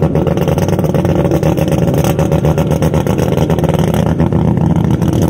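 Car engine running loudly and steadily, with a rapid pulsing exhaust note.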